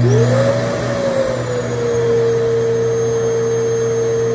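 RevAir reverse hair dryer's suction-and-airflow motor running, with a steady whine over rushing air. The pitch climbs as it comes up to speed in the first second, then settles a little lower and holds steady.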